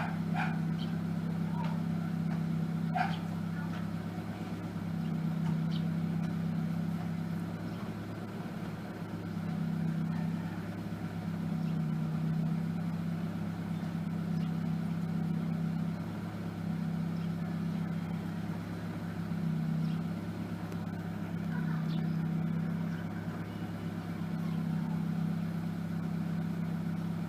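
1992 Mitsubishi Lancer GTi's four-cylinder engine idling steadily with a newly fitted MAF sensor. Its low note swells and fades every two to three seconds.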